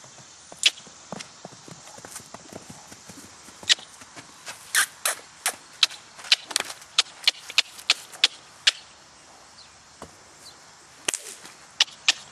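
Hoofbeats of a yearling Quarter Horse/Paint gelding: sharp, irregular clicks, a few scattered at first, then a quick run of them in the middle, a short pause, and a few more near the end.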